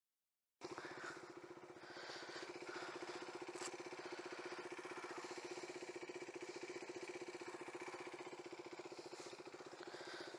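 Motorcycle engine idling steadily, starting about half a second in.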